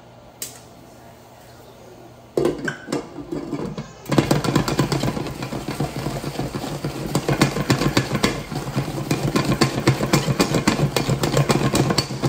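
A covered pot of kettle corn being shaken on the stove burner: a fast, steady metal rattle of the pot and lid, with the kernels rattling inside. It starts after a brief clatter about two and a half seconds in and is going hard from about four seconds.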